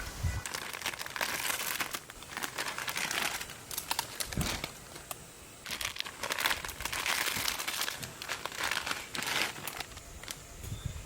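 Crinkling and rustling of a wrapper or bag being handled, in several bursts with sharp crackles.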